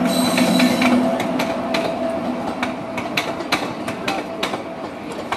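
Wheels of a moving passenger train clattering over rail joints and points, an irregular run of sharp clicks and knocks over a steady rumble, heard from an open coach doorway. A train horn dies away about a second in.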